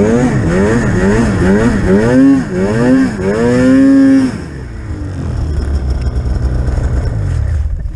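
Polaris Pro RMK 800 snowmobile's two-stroke twin engine revving, its pitch rising and falling about twice a second with quick throttle changes. About four seconds in it drops to a low, steady idle.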